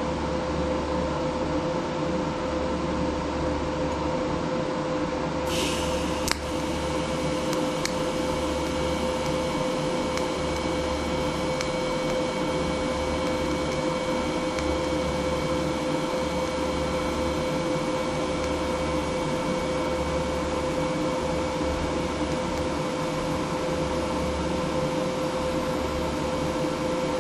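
Primeweld 225x TIG welder welding mild steel. A steady machine hum runs throughout; about five seconds in the arc strikes with a sharp click and then burns as a steady hiss with a high whine.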